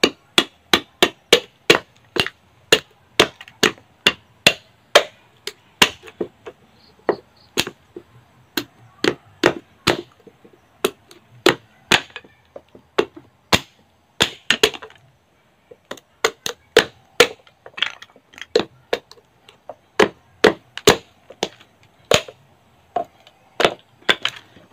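Machete chopping repeatedly at a husked coconut's hard shell on a wooden block: a long run of sharp knocks, roughly two a second, with a few short pauses, as shell pieces are cut away.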